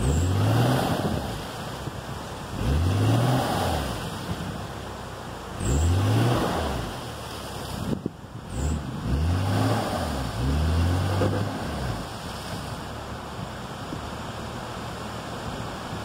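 A Jeep Cherokee XJ's engine revved hard in about five or six bursts, each rising and falling, as it works through a muddy rut. After about twelve seconds it settles to a lower, steady running. Wind rumbles on the microphone throughout.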